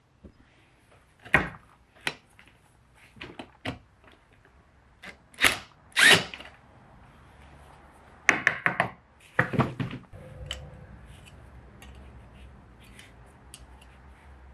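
Cordless impact driver with a socket run in short, sharp bursts on the throttle spindle nuts of a Dellorto DHLA carburettor, the bursts spread over the first ten seconds with quick clusters near the end of that stretch. After that there are only faint clicks of parts being handled.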